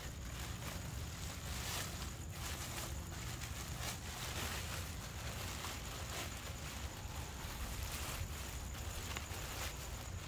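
Black plastic trash bag and plastic wrap rustling and crinkling in irregular crackles as they are pulled and folded by hand, over a steady low rumble.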